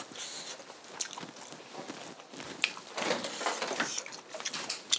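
Light household handling noise: soft footsteps and scattered clicks, then a refrigerator door pulled open with rustling from inside, and a sharp click near the end.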